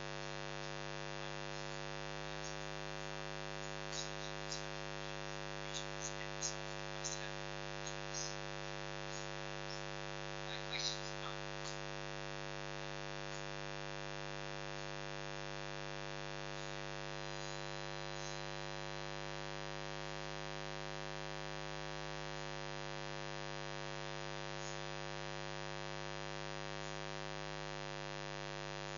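Steady electrical mains hum with many harmonics. A scatter of small clicks and knocks falls in the first dozen seconds or so, the loudest about eleven seconds in.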